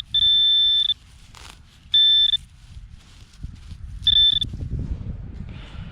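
Minelab Equinox 600 metal detector sounding a steady, high-pitched target tone three times as the coil is swept over a quarter lying at the surface: one beep of about a second, then two shorter ones. A low rumble runs underneath.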